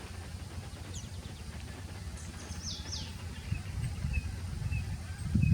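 Small birds calling: a high down-slurred note about a second in, two sharp high notes sliding steeply down about two to three seconds in, then a few short soft chips, over a steady low rumble.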